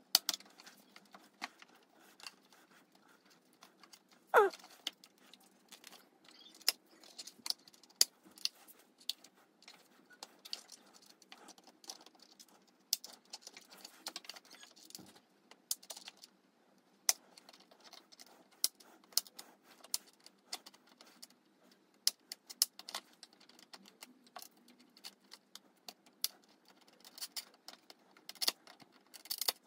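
Scattered small clicks and taps of pliers and a plastic motorcycle airbox being handled, with one short squeak falling in pitch about four seconds in.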